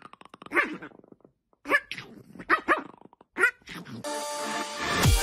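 A dog hidden under a fluffy blanket gives a string of about seven short barks in play as a hand pushes into the blanket. About four seconds in, electronic music with a steady beat starts.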